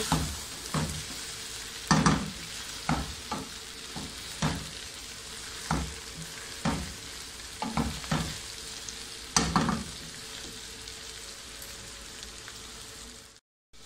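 Chopped okra sizzling steadily as it fries in oil in a pan over medium heat, stirred with a wooden spatula that scrapes and knocks against the pan roughly once a second, with two stronger knocks. The sound cuts out briefly near the end.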